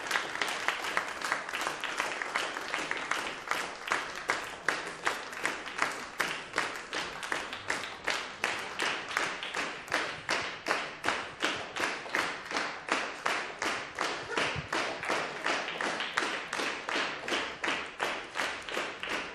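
Audience and jury applauding in unison: a steady, rhythmic clap at about two to three claps a second.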